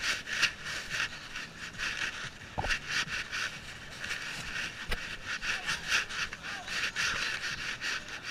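A dog panting close to the camera microphone, in short rhythmic breaths about two to three a second. A single sharp click comes about five seconds in.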